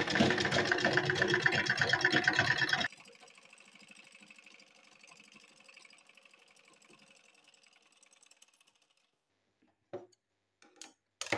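Sewing machine stitching through fabric in a fast, even clatter that stops suddenly after about three seconds. A few light clicks follow near the end.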